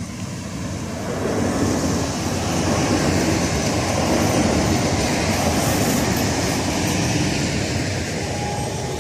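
PESA 36WE electric multiple unit passing close by at speed. The wheel and running noise swells about a second in, stays loud for several seconds, then fades as the last car goes by.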